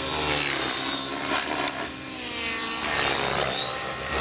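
Align T-Rex 700 nitro RC helicopter flying aerobatics: its nitro glow engine and rotor blades run steadily, the pitch sweeping up and down several times as it manoeuvres.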